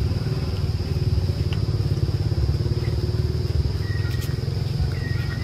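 A steady low rumble, like a motor running nearby, under a constant high hiss, with two short high chirps near the end.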